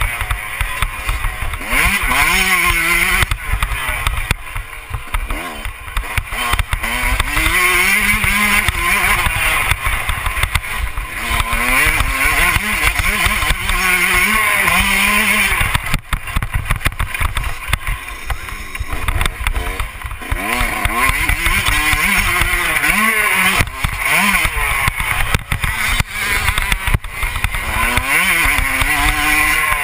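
Dirt bike engine revving hard on a motocross track, its pitch climbing and dropping again and again as the rider accelerates, shifts and backs off, with wind rumbling on the bike-mounted microphone.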